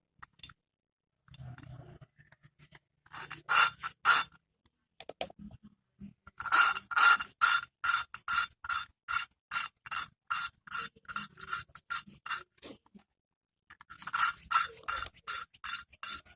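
Engine valve being lapped into its seat by hand with grinding compound: the valve is twisted back and forth on a hose fitted to its stem, giving a rhythmic gritty scraping of about three strokes a second. The strokes come in runs with short pauses.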